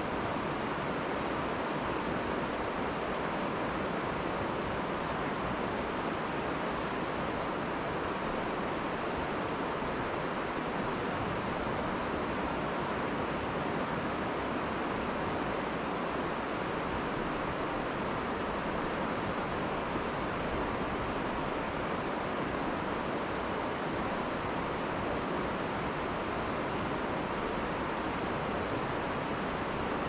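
Steady, even rush of a mountain river's flowing water.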